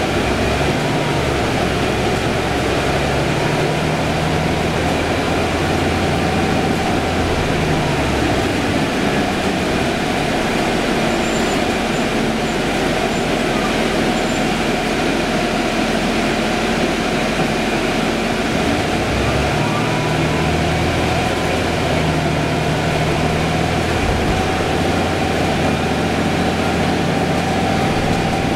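Cabin ride noise of a 2011 Orion VII hybrid city bus under way: steady road and drivetrain noise with a low engine hum that fades out about a third of the way in and comes back near the end.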